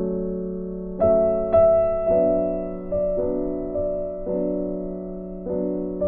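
Gentle background music on a keyboard, with notes struck about once a second and left to fade over a steady low tone.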